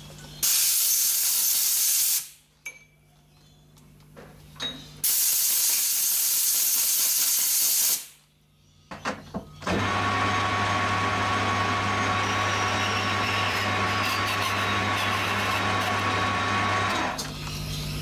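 Two loud hissing bursts of about two seconds each, then a metal lathe running for about seven seconds with a low hum and a thin steady whine while it cuts a small brass part.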